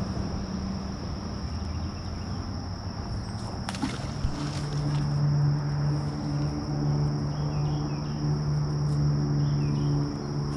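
Steady high-pitched drone of crickets or other insects, with a sharp knock about four seconds in. After the knock a steady low hum, like an idling engine, joins in and becomes the loudest sound.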